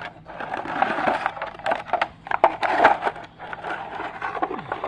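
Toy packaging and toys being handled and rummaged through: crinkling and rustling with many quick clicks and knocks.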